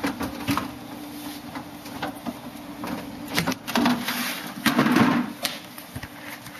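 Knocks and clunks of a refrigerator door being handled, with louder knocks about three and a half and five seconds in.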